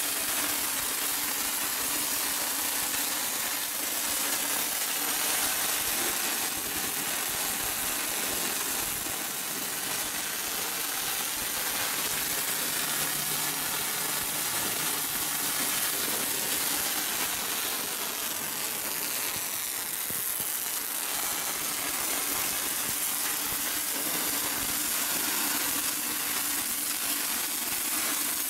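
Automatic pipe-and-flange welding line's arc-welding torches running continuously, a steady spattering hiss with a faint low hum underneath.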